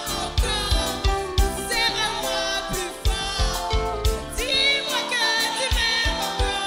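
Live band music with a steady drum beat and a singer holding and bending long notes in a slow love song.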